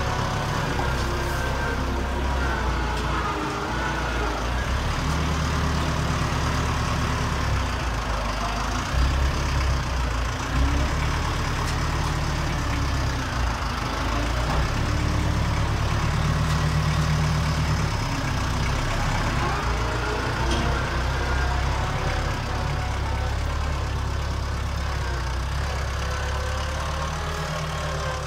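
Case IH Farmall 55A tractor's diesel engine running as it drives with a loaded front-end loader, its pitch rising and falling with the throttle. A few knocks stand out about nine to eleven seconds in.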